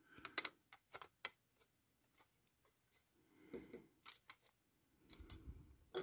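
Near silence, broken by a few faint clicks in the first second or so and light scattered rustles later: hands handling a heavy die-cast metal toy combine harvester.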